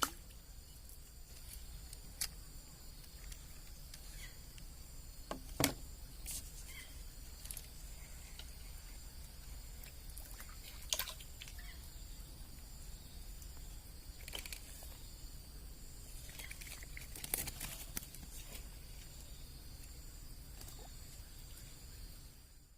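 Faint outdoor background with a steady low rumble and steady high-pitched hum, broken by a few sharp clicks or knocks, the loudest about five and a half seconds in.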